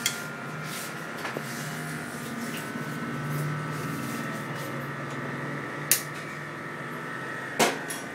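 A steady background hum, with a few sharp clicks and knocks as a steel pot is handled and set down on a gas stove, one near the start and three more toward the end.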